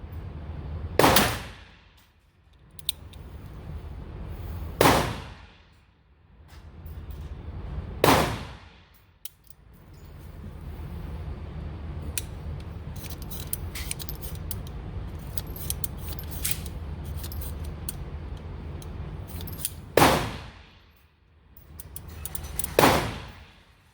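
Five loud gunshots in an indoor range, irregularly spaced: three about three to four seconds apart, then a long gap, then two more. A steady low hum of the range runs underneath.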